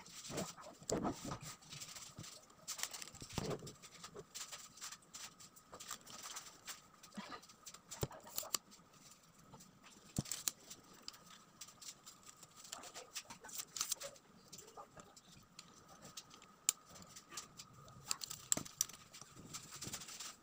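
Handling noises from a lightweight tripod with aluminium legs and plastic joints: irregular clicks, clacks and light knocks as its legs are spread and its plastic locks and centre column are worked on a desk.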